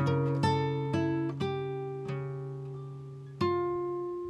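Background music on acoustic guitar: single plucked notes every half second or so that ring and fade, then a chord struck about three and a half seconds in that rings out.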